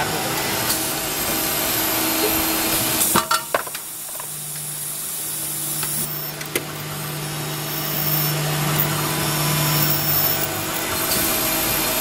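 Automatic padlock drilling machine running: a steady spindle-motor hum with the noise of the drill cutting into padlock bodies. A few sharp clunks about three seconds in, after which the sound drops for a couple of seconds and then builds again.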